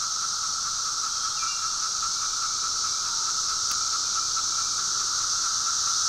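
Chorus of 17-year periodical cicadas: a steady, shrill buzzing drone, with a few single calls that drop in pitch.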